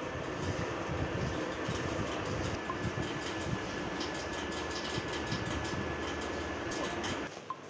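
Steady rumbling background noise with irregular low pulses and a faint steady hum; it cuts off abruptly near the end.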